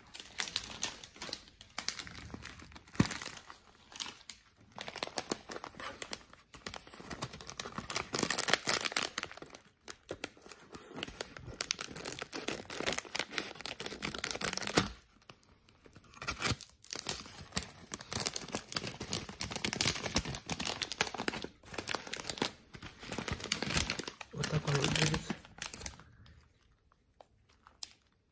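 Clear plastic packet of loose-leaf green tea being opened and handled by hand: the film crinkles and tears and the dry leaves rustle, in irregular spells. It falls quiet about two seconds before the end.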